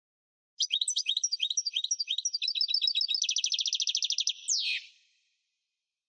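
European goldfinch singing: a phrase of quick repeated high notes that speeds up into a fast trill, closed by a single downward-sweeping note.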